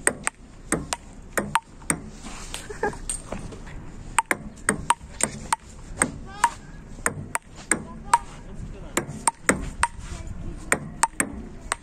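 Table tennis rally: the ball clicking off the paddles and the table in quick alternation, about two hits a second, with a couple of short breaks between points.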